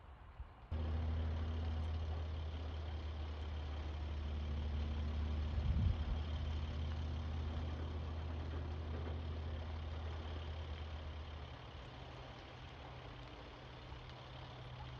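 A large vehicle's engine idling steadily, starting abruptly just under a second in, with a brief low thump about six seconds in.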